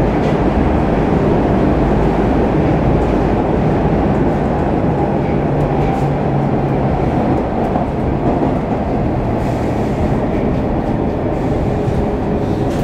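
Stockholm Metro C15 train running at speed, heard inside the passenger car: a steady rumble of wheels on rail with a few faint clicks.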